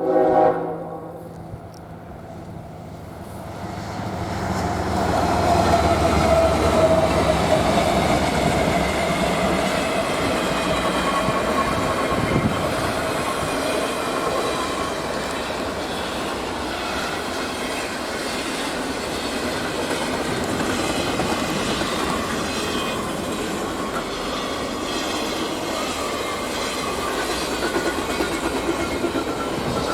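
A freight train's horn cuts off just at the start. The train then approaches and passes close by, with steady wheel-on-rail rumble, clickety-clack and faint wheel squeal as the cars roll past.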